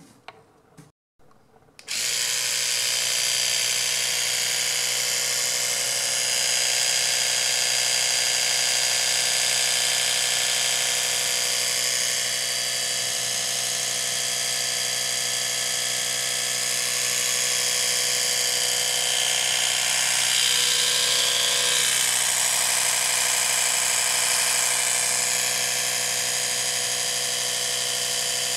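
Oral-B Vitality 100 electric toothbrush switched on about two seconds in and then running steadily, its motor buzzing as the Cross Action head oscillates in the air off the teeth.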